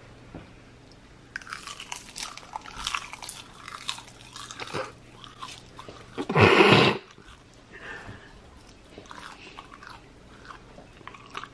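Close-miked crunching and chewing of a crunchy snack, eaten ASMR-style, as a run of small crackly bites. About six seconds in there is one short, louder sound with a pitch to it.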